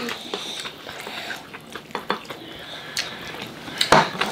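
Chopsticks and spoons clicking against glass noodle bowls while people eat noodles, with a sharp clink about four seconds in.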